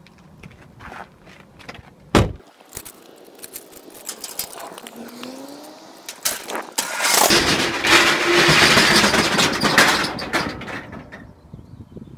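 Keys jangling and a key clicking in a lock, then a metal roller shutter rolling up with a loud rattle for about three seconds, a steady motor hum under it.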